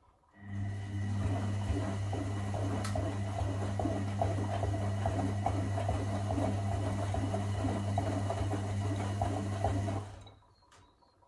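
Electra Electronic 1100 front-loading washing machine turning its drum during a wash, the motor humming steadily while wet towels and water slosh inside. It starts about half a second in and stops abruptly about ten seconds in, as the drum pauses between turns.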